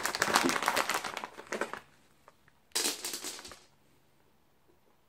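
A crinkly packet of cat treats being shaken and rattled to call a cat. It rattles until about two seconds in, then comes back in one more short shake near three seconds.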